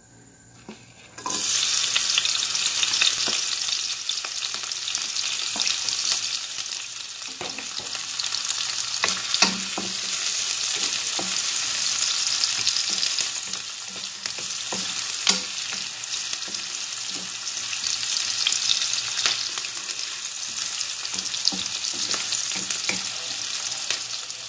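Chopped onions sizzling as they hit hot oil in a wok, the frying hiss starting suddenly about a second in and running on steadily. A wooden spatula stirs them, with scattered knocks and scrapes against the pan.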